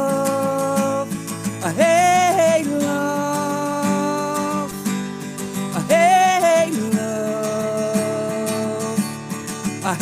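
Strummed acoustic guitar with a man singing long held notes, some of them bending and wavering in pitch, in a live solo acoustic song.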